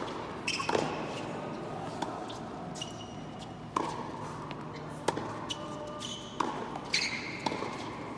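Tennis rally on an indoor hard court: a string of sharp pops as the ball is struck by the rackets and bounces on the court, about one every second or so, with a few short high squeaks.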